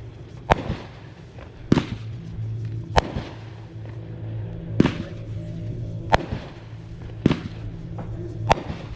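Consumer fireworks going off in a regular series: seven sharp bangs, a little over a second apart, each with a short echoing tail.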